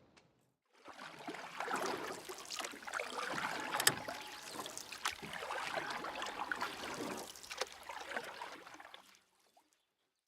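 Water splashing and sloshing close to the microphone, uneven with small sharp splashes, as a just-released fish goes back into the water.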